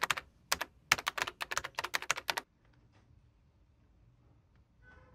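Computer keyboard typing sound effect: a quick run of key clicks for about two and a half seconds, then stopping.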